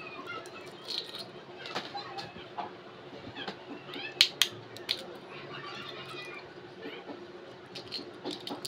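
Quail eggs being cracked open by hand over a plate: a run of sharp shell clicks and taps, the loudest about four seconds in.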